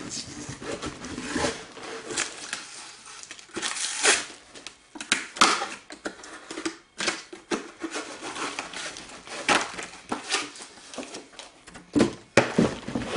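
Packaging being handled and opened by hand: irregular rustling, crinkling and tearing, broken by sharp clicks and small knocks.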